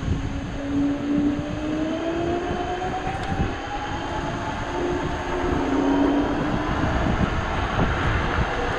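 Dualtron Thunder electric scooter's hub motors whining under acceleration, the whine rising steadily in pitch as speed climbs, over a low rumble of tyres and wind on the microphone.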